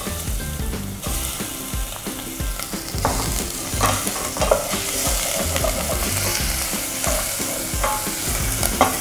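Minced chicken sizzling in hot oil in a stainless steel saucepan, stirred with a wooden spatula that now and then scrapes and knocks against the pot.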